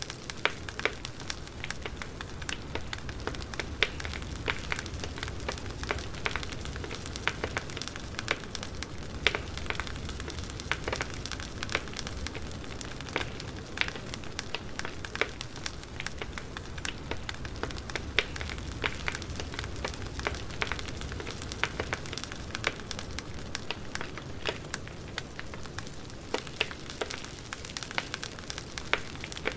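Campfire crackling: a wood fire giving off irregular sharp pops and snaps over a steady hiss of burning.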